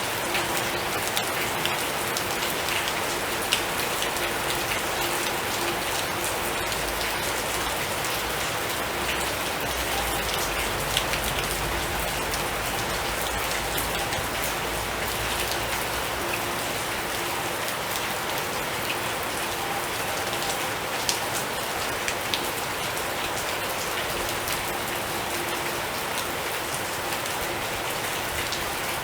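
Steady rain falling, a dense even hiss with individual drops ticking sharply now and then. A low rumble sits underneath for several seconds near the middle.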